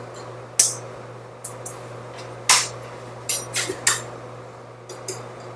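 Kitchen utensils and dishes clinking and knocking as they are handled: about nine sharp, irregular clinks, the loudest near the middle, over a steady low hum.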